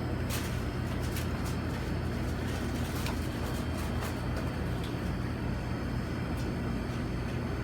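Steady low hum of kitchen equipment, with a few faint light clicks and taps scattered through it.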